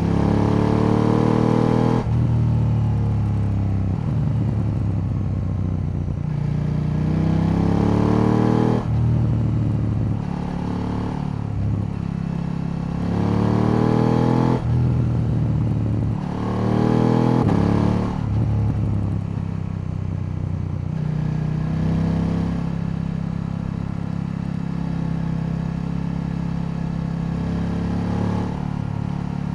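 KTM 890 Duke L's parallel-twin engine pulling up through the gears. It rises in pitch four times, with a sudden drop at each upshift, then runs steadily at a cruise for the last ten seconds or so.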